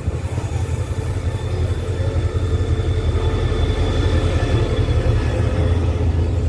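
State Railway of Thailand diesel locomotive running a passenger train slowly into the platform, its low engine and wheel rumble growing louder as it draws alongside. A thin high tone sounds over the rumble in the middle.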